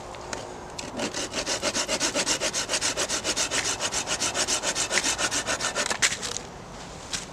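Folding saw cutting through a wooden branch with rapid, even back-and-forth strokes, about seven a second, starting about a second in and stopping just after six seconds. A single sharp click follows near the end.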